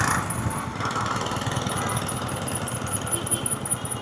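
Motorcycle engine running slowly in traffic, with traffic noise around it, heard through a clip-on wireless microphone with its noise cancellation switched on. A faint regular high ticking runs along with it.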